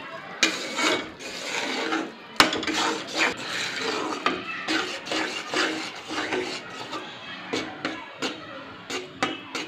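A spatula scraping and stirring besan roasting in ghee in a metal kadhai, in rhythmic rasping strokes about twice a second, with one sharp knock of the spatula about two and a half seconds in.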